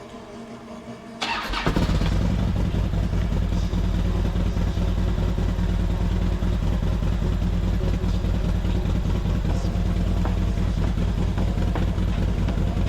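Harley-Davidson Dyna's V-twin is cranked by its starter and catches about a second in, then runs at a steady idle.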